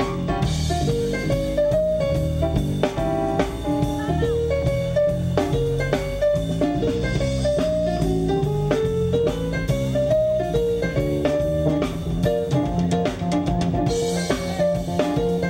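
Live instrumental blues in B-flat played by a keyboard, drum kit and guitar trio. A melodic lead line with rising runs plays over a steady bass and drum groove.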